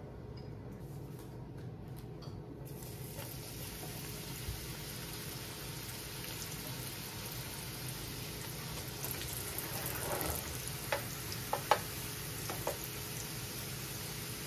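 Corn tortilla squares frying in hot vegetable oil in a nonstick pan: a steady sizzle that starts about three seconds in. A few light clicks of the spoon stirring them against the pan come near the end.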